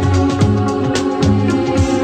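Background music: sustained keyboard chords over a bass line and a steady beat.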